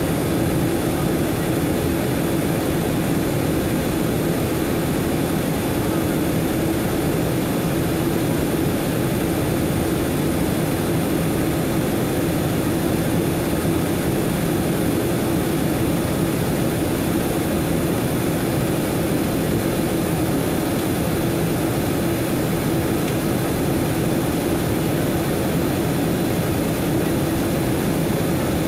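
Jet airliner cabin noise heard from a window seat shortly after takeoff: the steady roar of the engines and rushing air, with a constant low hum underneath.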